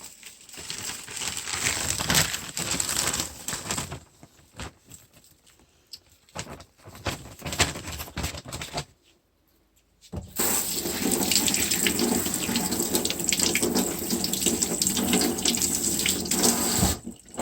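Running water, like a tap, in two stretches: a few seconds at the start, then a longer steady run from about ten seconds in, stopping just before the end.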